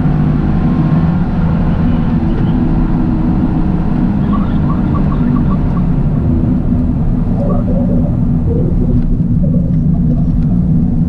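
Toyota GR Yaris engine running steadily at an even pitch while driving, with road rumble beneath.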